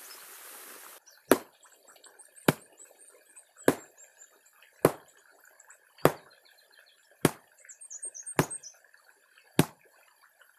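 A stick beating a bundle of fish-poison plant material at the stream's edge, crushing it to release the poison into the water. Eight sharp blows land at a steady pace, about one every 1.2 seconds. Birds chirp faintly between them.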